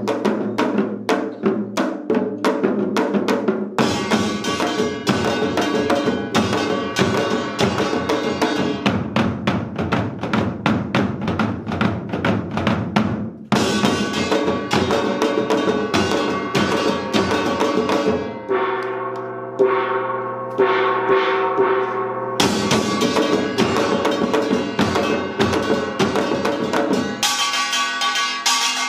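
Korean samul nori percussion ensemble of janggu hourglass drums, buk barrel drums and a small gong playing a fast, dense rhythm. About two-thirds of the way through the drums drop back to a lighter passage for a few seconds, then the full ensemble comes back in.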